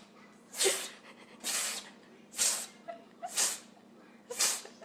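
A pet sneezing five times in a row: short, breathy bursts through the nose, about a second apart.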